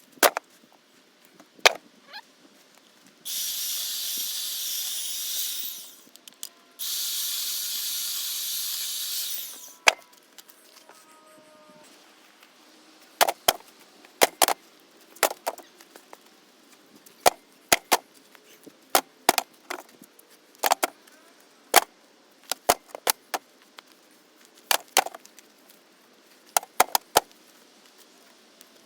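Work on a thick copper cable: two stretches of loud, steady, hissing power-tool noise a few seconds in, each about two and a half seconds, then a long run of sharp knocks, one or two a second, as the cable is chopped and its casing worked off.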